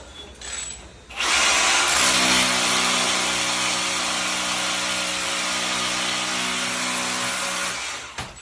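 Cordless hammer drill on an extension pole drilling a hole up into a precast concrete ceiling. It starts about a second in, runs steadily for about seven seconds and stops just before the end.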